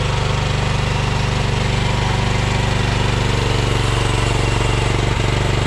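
Mini excavator's 13.5-horsepower Briggs & Stratton XR engine running steadily, with a single brief knock about five seconds in.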